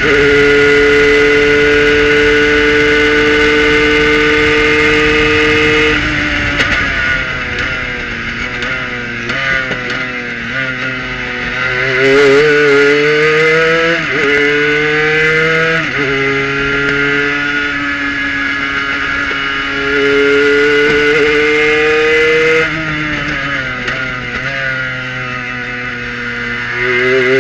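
Kohler-powered Prototype 1 race car engine heard from inside the cockpit with wind noise. It holds a steady high note at full throttle in fifth gear for about six seconds, then drops as the car brakes and downshifts. After that it climbs in pitch through the gears in several rising sweeps, lifts again about three quarters of the way through, and rises once more near the end.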